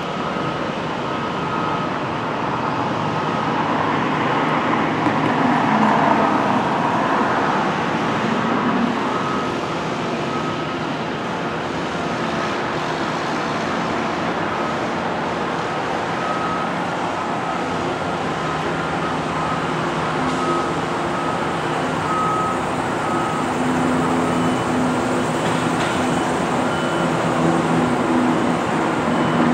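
Steady vehicle and traffic noise with a low hum of engines running.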